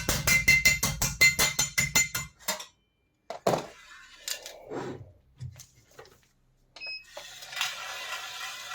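Rapid metal-on-metal tapping, about five ringing strikes a second, that stops after about two seconds. A few scattered clinks follow, then a steady hiss starts about seven seconds in.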